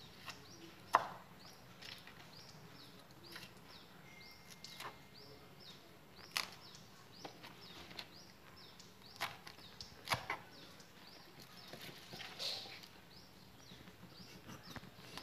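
A kitchen knife cutting on a cutting board, giving a few irregular sharp knocks as it hits the board, the loudest about a second in.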